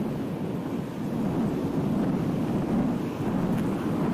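Steady low wind rumble on an action camera's microphone while riding a bicycle, with street traffic and road noise underneath.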